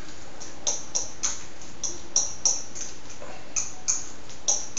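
A utensil clicking against a plate as food is worked on it: about ten short, sharp clicks at uneven intervals.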